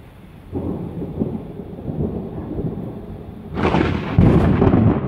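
Thunder: a rumble begins about half a second in, then a much louder, sharper crash breaks about three and a half seconds in and keeps rumbling.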